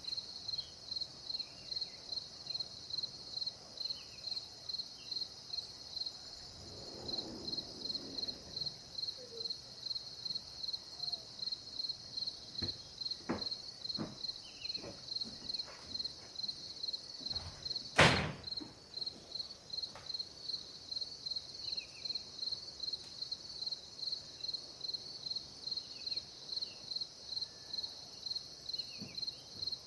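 Insects chirping in an even rhythm, about two to three chirps a second, over a steady higher buzz of more insects. A single sharp click comes a little past halfway, just after a few fainter clicks.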